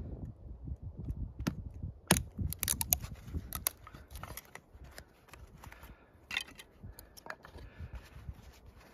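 QSP Bison fixed-blade knife working into thin sticks of split wood. A string of sharp cracks and crunches sounds as the wood fibres split, loudest about two to four seconds in and again near six and seven seconds, with soft scraping in between.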